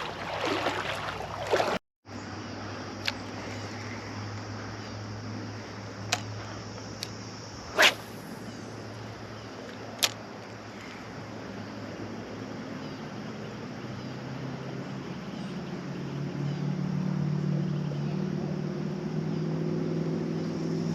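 Steady rush of a fast-running creek, with a few sharp clicks, the loudest about eight seconds in. In the last third a low engine drone builds up and grows louder.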